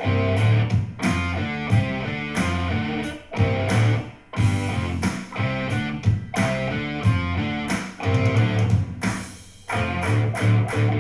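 Instrumental guitar-led music with a strong bass line, played back through Logitech Z407 2.1 Bluetooth speakers with subwoofer and picked up by a microphone. It drops briefly about four seconds in and eases into a lull around nine seconds before picking up again.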